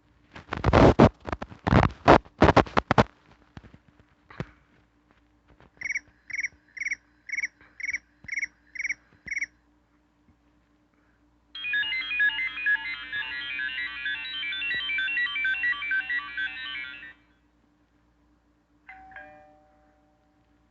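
A run of classic iPhone/iPod touch ringtones from the device's small speaker. First comes a few seconds of chirpy cricket-like trills, then eight evenly spaced electronic beeps, then a dense ringing chime lasting about five seconds, and near the end a brief low tone.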